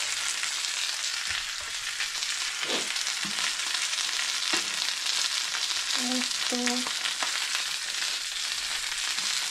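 Marinated chicken pieces frying on a hot comal (flat griddle), a steady loud sizzle, with a few soft knocks as the pieces are handled.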